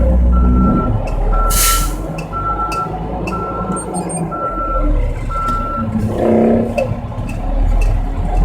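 A truck's reversing alarm beeping at an even pace, about one beep a second, over a running engine, stopping about six seconds in. A short, loud hiss just under two seconds in.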